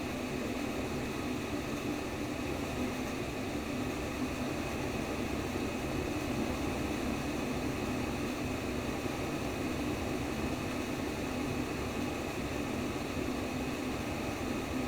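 Womb-sound white noise: a steady, even rushing hiss, fullest low down, with no heartbeat or pulse heard.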